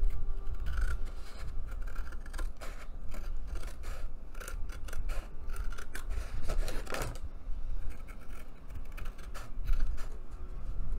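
Scissors cutting a heavy 114 lb mixed media paper sheet along a crease line, in a run of repeated short snips.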